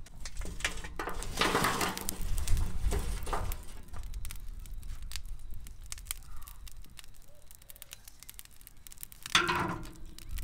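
Burning lumpwood charcoal poured from a chimney starter into a steel grill box. The coals clatter and tumble onto the metal, loudest a couple of seconds in, with sharp crackling and ticking from the burning coals and a louder knock near the end. A steady low rumble runs underneath.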